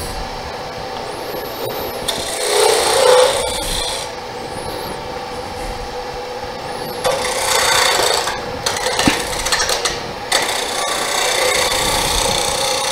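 Small wood lathe running with a steady hum while a turning tool cuts the spinning hardwood duck-call blank, making a scraping hiss that comes in several spells and grows louder toward the end.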